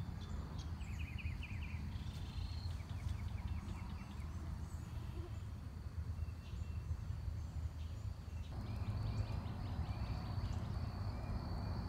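Birds chirping and trilling in the trees, in quick repeated notes, over a steady low rumble on the microphone.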